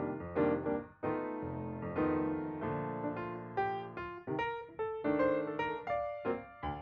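Background piano music: notes struck one after another, each ringing and dying away.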